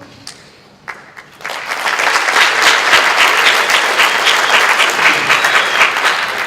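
An audience applauding in an auditorium: a few scattered claps, then a full round of clapping from about a second and a half in that holds steady and begins to fade near the end.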